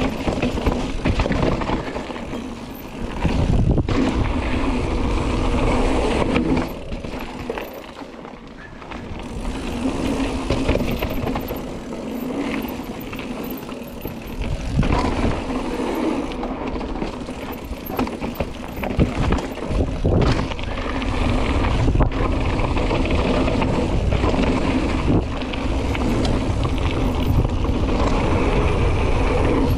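Mountain bike riding fast down a dirt downhill trail: tyres rumbling over the ground, and the bike knocking and rattling over bumps and roots, with wind buffeting the camera microphone. It eases off for a few seconds about eight seconds in.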